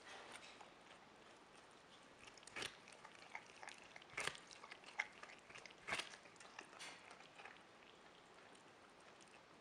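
Capybara biting and chewing a raw yellow squash: a run of faint crunches and clicks in the middle, with quiet room tone either side.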